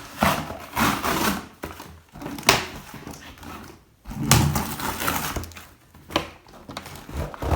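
Cardboard toy packaging being handled and pulled apart in irregular bursts of crinkling, scraping and tearing, with sharp clicks and knocks.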